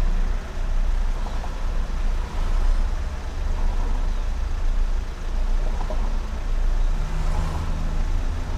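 Low, steady rumble of a car's engine and traffic, heard from inside the car's cabin.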